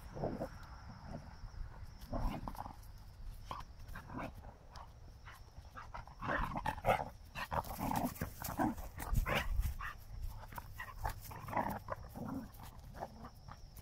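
Two Portuguese Water Dog puppies play-wrestling, their short vocal noises coming in quick, irregular bursts, loudest around the middle.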